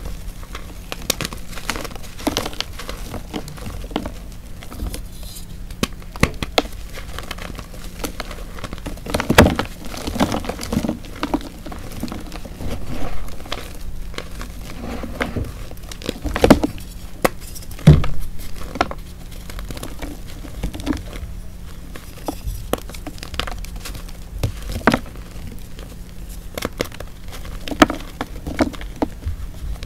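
Moulded hearts of hardened Chalkness gym chalk being crushed and crumbled by hand: a run of irregular crunches and crackles, with a few louder snaps about a third of the way in, past the middle, and near the end.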